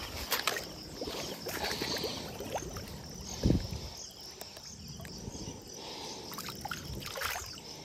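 Water splashing and trickling in short irregular bursts, the strongest about three and a half seconds in, over a steady high chirring of crickets.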